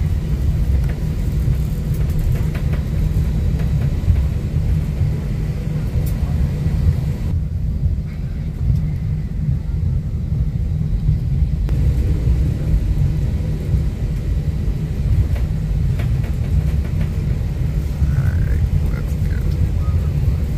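Airliner cabin noise heard from a passenger seat: a loud, steady low rumble.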